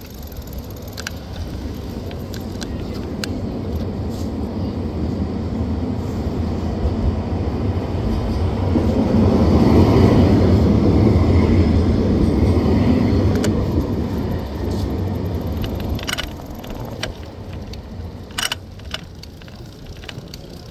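Low rumbling street noise during a city-bike ride. It swells slowly to a peak about halfway through and fades again, with scattered clicks and rattles.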